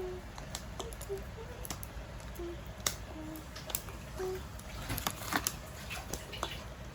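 Light clicks, taps and rustling as small plastic surprise-egg toys and their wrappers are handled, with a denser burst of clicking and crinkling about five seconds in.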